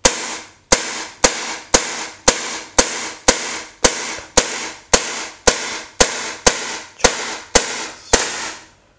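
Umarex Beretta M9A1 CO2 blowback BB pistol firing shot after shot at a steady pace of nearly two shots a second, each sharp crack trailing off briefly. The CO2 cartridge is running low, which the shooter says caused one double fire.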